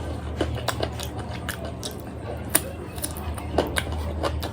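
Close-up eating sounds from chicken curry: chewing and wet mouth smacks, heard as a string of short, irregular clicks over a steady low hum.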